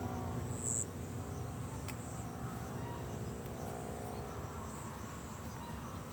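Faint outdoor ambience with insects chirping and a few short, high chirps.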